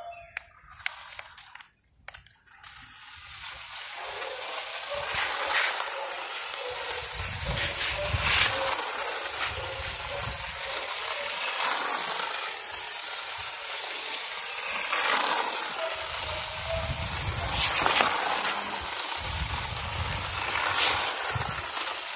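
Toy remote-control car running over rough concrete: a steady hiss from its small electric motor and wheels that builds from about three seconds in, with scattered clicks.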